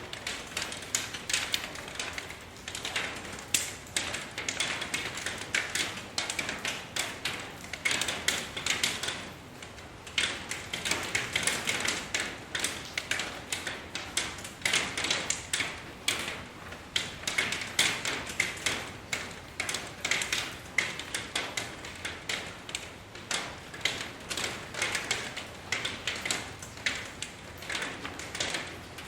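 Rain falling, heard as a dense, uneven stream of close drop hits ticking on a surface, easing briefly about a third of the way in.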